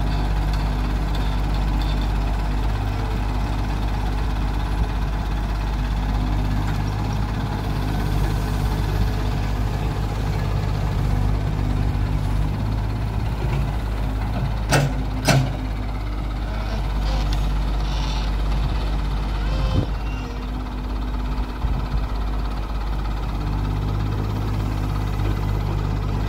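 Diesel engines of a Mahindra tractor idling and a Tata Hitachi EX70 excavator digging, running steadily, with two sharp knocks about halfway through.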